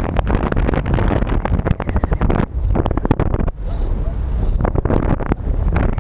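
Wind buffeting the microphone: a loud, gusty rumble with crackling, easing briefly a few times.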